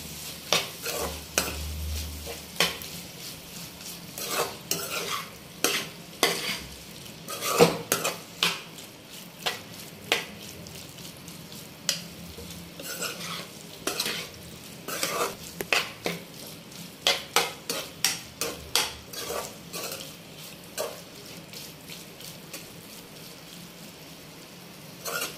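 Perforated metal spatula stirring and scraping pieces of chicken fry around a frying pan, with irregular clinks and scrapes against the pan over a steady sizzle of the frying masala. This is the final mix that works in the freshly added coriander powder. The strokes thin out for a few seconds near the end.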